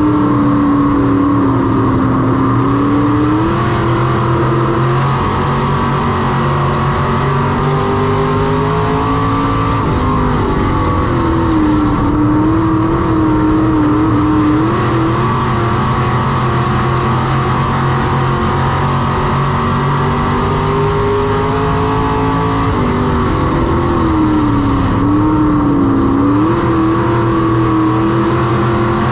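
Semi late model race car's V8 engine at racing speed. Its pitch drops three times, about eleven seconds apart, as it lifts for the turns, then climbs and holds high down the straights: steady laps of a dirt oval.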